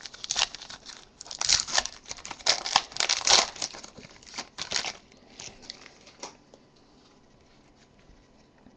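Foil wrapper of a Panini Select football card pack being torn open and crinkled by hand: a dense run of sharp crackles over the first five seconds, then a few fainter crackles that die away by about six seconds in.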